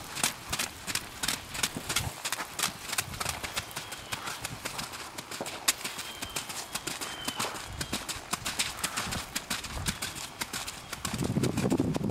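Welsh pony trotting, its hoofbeats striking in a quick, even rhythm of about four a second on wet arena footing. Near the end a louder low rushing noise comes in.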